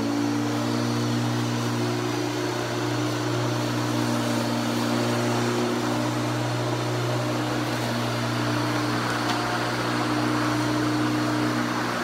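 Electric walk-behind lawnmower running steadily as it is pushed over grass, its motor giving a constant low hum under the whir of the blade. The hiss rises a little near the end.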